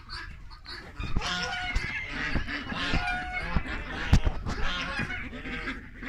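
Domestic geese honking, many short calls one after another, with a sharp knock about four seconds in.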